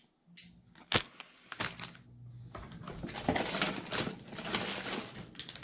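A sharp knock about a second in, then plastic packaging rustling and crinkling, growing louder, as hands rummage through a cardboard shipping box full of bagged lures.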